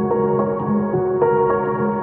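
Calm ambient background music of sustained pitched notes, with a new note struck every few tenths of a second.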